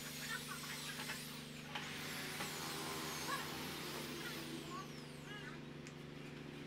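Steady low electric hum of a corded hand drill's motor, with a few short, high chirping calls over it.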